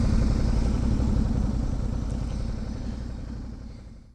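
Suzuki V-Strom DL650 V-twin motorcycle riding along, its engine running under a steady low rumble, fading out near the end.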